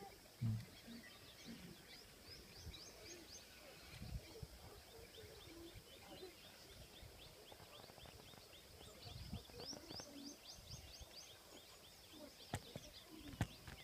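Birds chirping faintly in quick runs of short rising notes, against a low outdoor background rumble, with two sharp clicks near the end.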